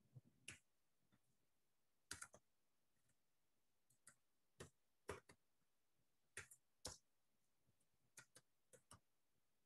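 Faint, irregular clicks of keys being typed on a computer keyboard, about a dozen over several seconds, some in quick pairs and triples.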